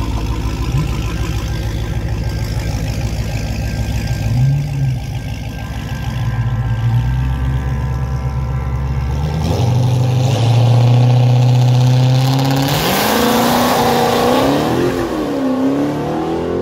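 Dodge Charger's V8 idling with a brief rev, then held at higher revs on the line before launching hard down the drag strip about twelve seconds in, its pitch climbing and dipping as it shifts up through the gears.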